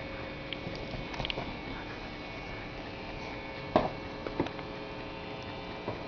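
A steady electrical hum, with two brief sharp sounds about four seconds in, half a second apart.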